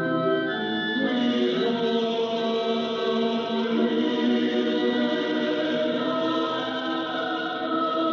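A choir singing sustained chords, received as an AM longwave radio broadcast on a Yaesu FRG-8800 receiver, with the narrow, dull sound of AM reception.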